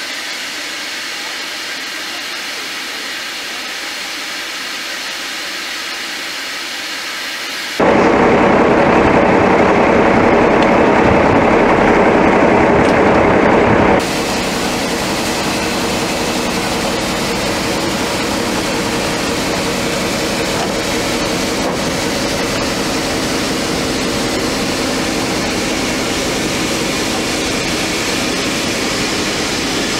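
A heavy engine runs steadily under a loud rushing noise. The sound jumps louder about 8 seconds in and drops back about 14 seconds in.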